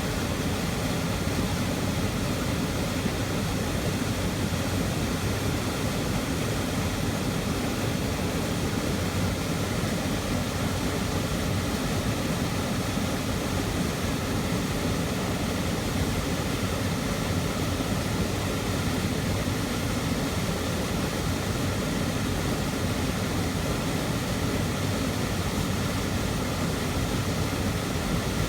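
A waterfall pouring into a pool at close range: a loud, steady rush of falling water, heaviest in the low range, with no let-up.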